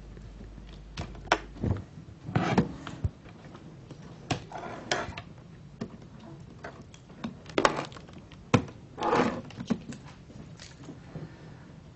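Irregular knocks, clicks and brief rustles of equipment being handled, a dozen or so uneven bumps with the sharpest about a second in, near two seconds and around eight and a half seconds.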